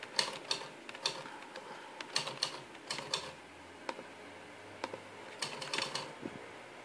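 Typing on a MacBook Pro laptop keyboard: short runs of key clicks with pauses between, and a longer pause a little past the middle.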